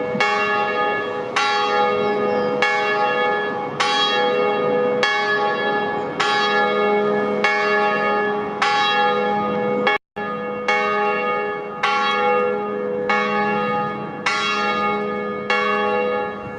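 Liverpool Metropolitan Cathedral's bells ringing, a stroke a little over once a second with different bells sounding in turn over a steady low hum. There is a momentary break about ten seconds in.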